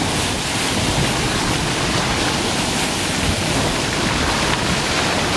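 Water rushing steadily along the bow of a moving boat, the hiss and wash of the bow wave.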